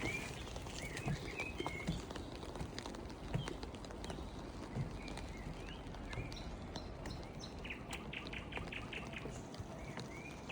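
Steady rain falling, with scattered sharp ticks, while birds chirp on and off; a quick run of chirps comes about eight seconds in.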